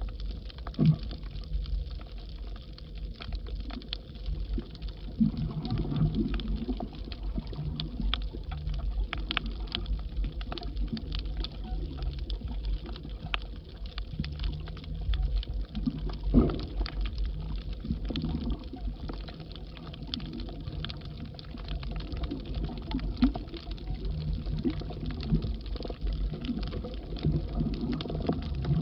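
Underwater sound picked up by a submerged camera: a low rumble of moving water with patches of bubbling and a steady scatter of crackling clicks. A few sharper pops stand out, about a second in, near five seconds and about sixteen seconds in.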